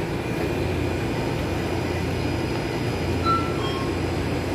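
Steady low mechanical hum of a convenience store's background noise, with a couple of faint short beeps a little past three seconds in.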